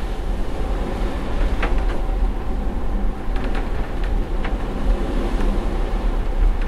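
Inside a ferry's cabin during a fairly rough sea crossing: a steady low rumble from the ship, with a faint steady hum and several short knocks and clicks from the cabin scattered through it.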